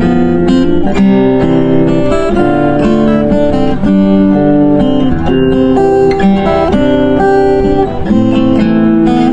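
Background music played on acoustic guitar: a tune of plucked notes following one another, with chords underneath.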